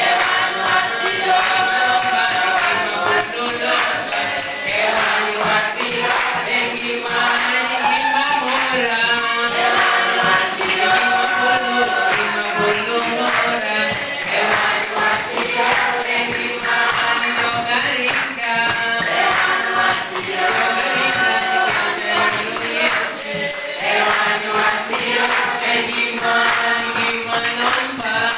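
Congregation singing a praise song together in unison, with steady percussion keeping the beat underneath.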